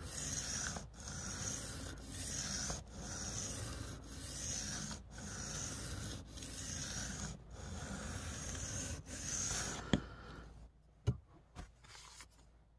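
Steel knife blade (Spyderco PM2 in S30V steel) scraping back and forth across a wet sharpening stone in steady strokes about a second apart, freehand sharpening of the edge. The strokes stop about ten seconds in, and a few light taps follow.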